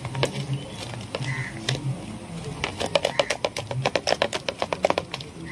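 A hand beating thick jackfruit batter in a steel bowl: quick wet slaps and squelches that come faster and denser from about halfway through. The batter is being beaten at length, which makes it better the longer it goes.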